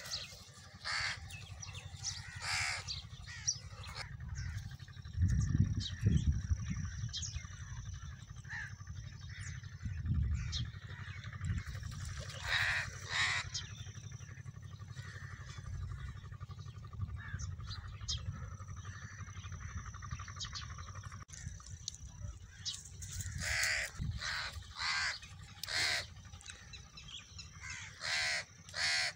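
Crows cawing repeatedly, the calls coming in scattered clusters and growing denser near the end. A steady low rumble runs underneath, with louder low bursts about five and ten seconds in.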